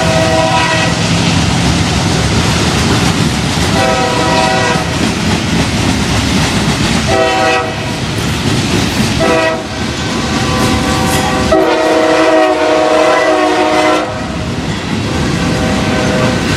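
CSX diesel locomotive's multi-chime air horn sounding over the steady rumble and clatter of a passing freight train. There is a short blast at the start, then three blasts of under a second each, then a last blast held for about two and a half seconds.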